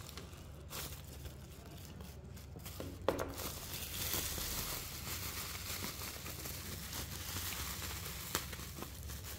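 Bubble wrap crinkling and rustling as it is handled and pulled away from a small plastic part, with a sharp crackle about three seconds in.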